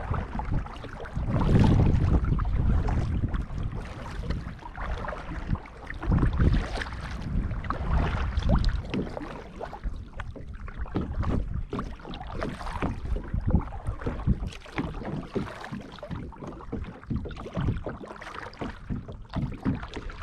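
Kayak being paddled: irregular splashes and knocks of paddle strokes in the water, with heavier low rumbling surges now and then.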